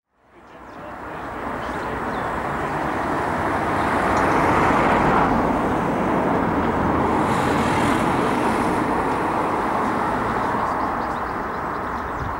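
Steady vehicle rumble and hiss, fading in over the first second or two.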